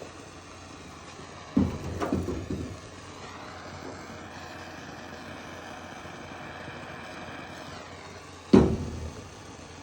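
Propane torch hissing steadily, its hiss brightening for a few seconds in the middle, with two loud thumps, one about a second and a half in and one near the end.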